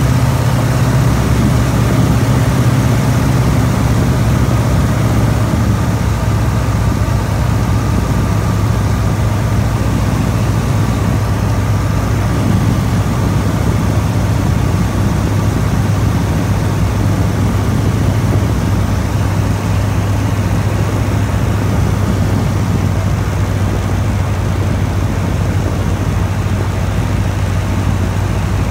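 Light aircraft's engine and propeller droning steadily in flight, heard from an open cockpit with wind rushing past. The engine note drops slightly about five seconds in, then holds steady.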